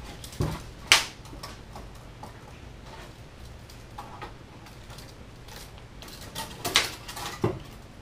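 Steel tape measure being pulled out and handled against a car fender: scattered clicks and rattles, with a sharp clack about a second in and a short run of louder clacks near the end.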